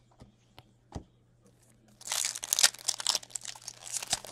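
A few light clicks of trading cards being handled, then from about two seconds in the crinkling and tearing of a foil card-pack wrapper being ripped open.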